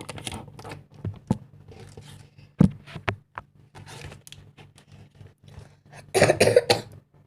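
Handling noise at close range: irregular knocks and scrapes, one sharp knock a little over two and a half seconds in, and a burst of rustling about six seconds in, over a low steady hum.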